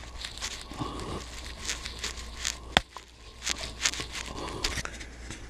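Handling noise from a small camera being picked up and moved by hand: rustling and scraping with scattered clicks, and one sharp click a little under three seconds in.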